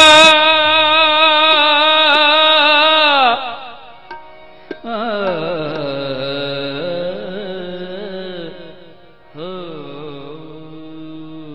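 A held musical note fades out about three seconds in; then a man sings a slow, drawn-out alaap of long held notes into a microphone, in two phrases that each slide down before holding, as the opening of Sikh kirtan.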